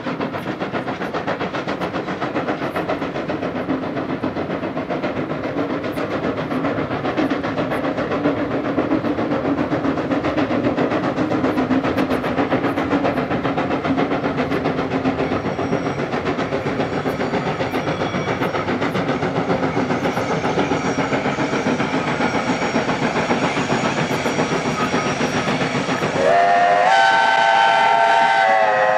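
New Zealand Railways J-class steam locomotive working hard, its exhaust beating rapidly and steadily. Near the end it sounds a loud multi-tone steam whistle that rises briefly in pitch as it opens and holds for about three seconds.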